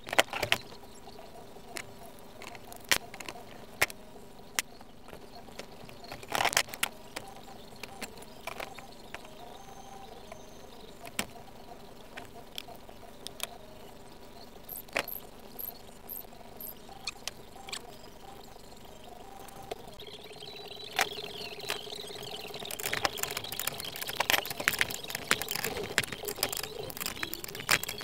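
Rusty iron U-bolts, nuts and brackets clinking and knocking as they are handled and set down on a wooden workbench, over a faint steady hum. The clinks are sparse at first and come thick and fast in the last quarter.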